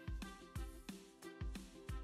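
Background music with a steady low drum beat about twice a second under short, bright notes.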